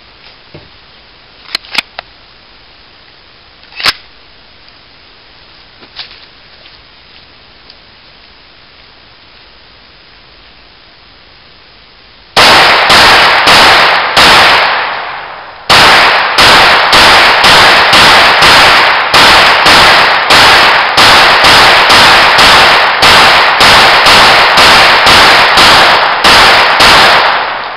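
Intratec TEC-22 .22 LR semi-automatic pistol firing. After about twelve seconds of quiet with a few faint clicks come four loud shots, a short pause, then a steady string of shots at about two a second, cycling without a stoppage until shortly before the end.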